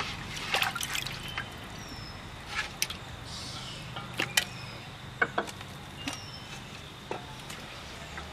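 Hands washing raw chicken pieces in a bucket of water: splashing and sloshing, with scattered sharp clicks and knocks.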